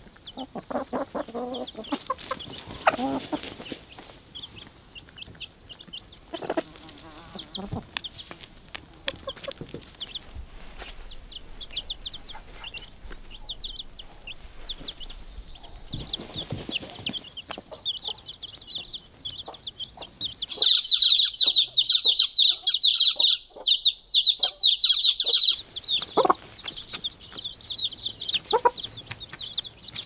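Baby chicks peeping over and over, with a mother hen clucking low in the first few seconds. The peeping gets loud and dense for about five seconds past the middle.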